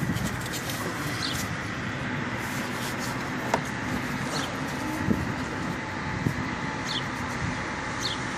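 Steady outdoor traffic noise, with a few short high chirps and a single sharp click a little before halfway.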